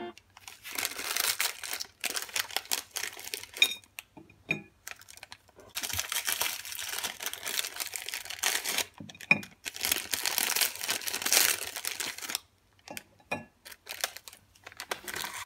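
Plastic Oreo snack-pack wrappers being torn open and crinkled in bursts, with short pauses between packets.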